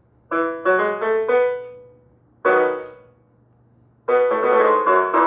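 Vangoa VGD611 61-key digital piano played with its piano voice: a few quick notes and chords that ring out, a single chord about two and a half seconds in, then fuller, busier chords from about four seconds in.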